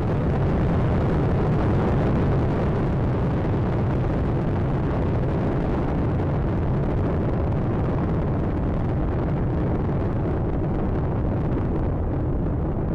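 Space Shuttle launch roar during ascent, the solid rocket boosters and three main engines making a steady, dense low rumble. The higher part of the sound thins a little near the end as the vehicle climbs away.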